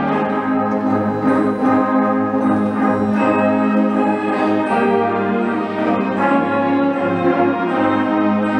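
Middle school symphonic band playing live, a full wind band with brass to the fore, holding sustained chords that shift every couple of seconds.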